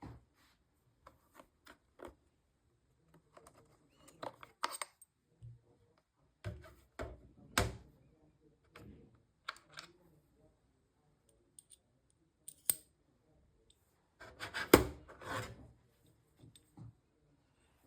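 Scattered handling sounds of small hard parts: light clicks, snips and rustling. There is a sharp click about a third of the way in, another past the middle, and a louder clatter of several knocks about fifteen seconds in.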